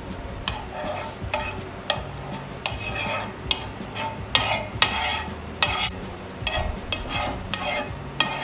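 Metal spoon stirring a soy and oyster sauce in a nonstick frying pan on low heat, scraping and clinking against the pan repeatedly, about every half second.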